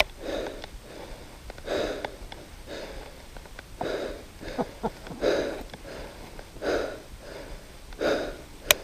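A man breathing hard and fast, panting about once a second, out of breath after running uphill. A single sharp click near the end.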